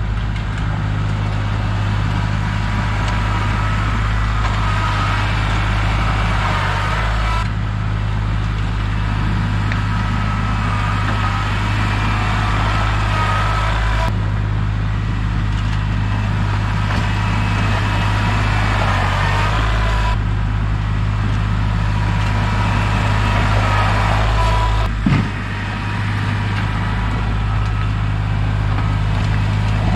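Kubota L3301 tractor's three-cylinder diesel engine running steadily at a constant pitch, with one short knock about 25 seconds in.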